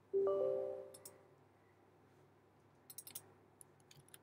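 Windows 10 system chime, a bell-like note of several tones that sounds once and fades within about a second as the User Account Control elevation prompt comes up. About three seconds in come a few light clicks and key taps from the mouse and keyboard.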